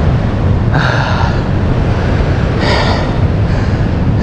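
A man breathing hard from exertion while climbing a steep slope: two heavy breaths about two seconds apart, over a steady rumble of wind on the microphone.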